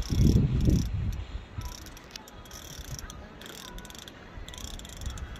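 Fishing reel being cranked to wind in a hooked fish, a repeated mechanical whirring and clicking about every half second. A low rumble in the first second, handling or wind noise on the microphone.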